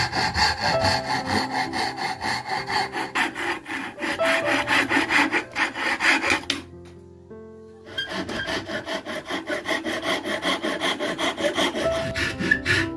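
Thin-bladed hand saw cutting a pear-wood handle block clamped in a vise, in quick, even back-and-forth strokes. The sawing breaks off for about a second just past the middle, then carries on.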